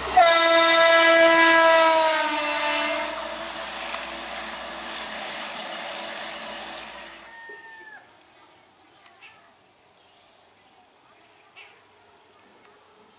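Diesel multiple unit train's horn blasting loud as the train runs close by, its pitch sagging slightly as it passes, then fading away over several seconds. A brief falling horn note follows, and afterward only faint background sounds remain.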